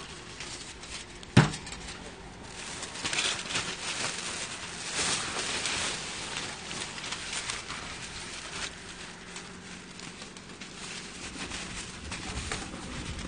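Aluminium foil crinkling and rustling as it is folded and wrapped by hand, with one sharp knock about a second and a half in.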